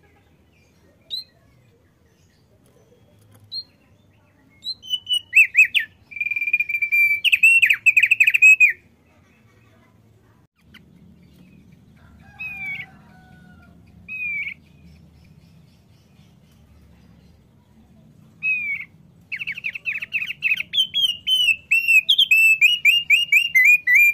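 Male thick-billed heleia (opior paruh tebal) singing: a few single high chirps, then a burst of quick repeated notes about five seconds in, a quieter stretch with a couple of calls, and a long run of rapid notes near the end.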